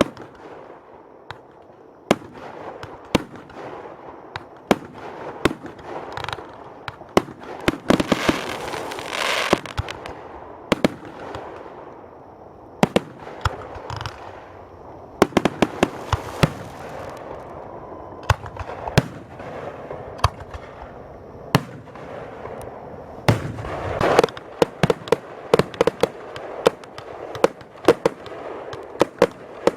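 Fireworks display: aerial shells going off in a long series of sharp bangs, with stretches of hiss between them and a quick run of bangs near the end.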